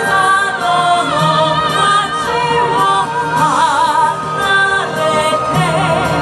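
Yosakoi dance music with sung vocals, loud and continuous.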